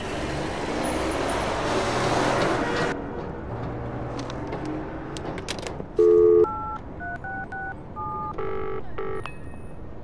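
Street traffic noise for about three seconds, then a payphone's touch-tone keypad beeping as a number is dialled: a loud tone, then a quick run of short two-tone beeps.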